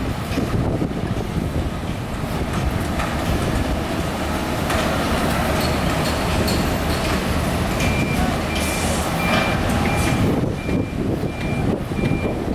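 Heavy construction machinery running with a steady rumble. About two-thirds of the way in, a reversing alarm starts beeping at a single high pitch, about two beeps a second.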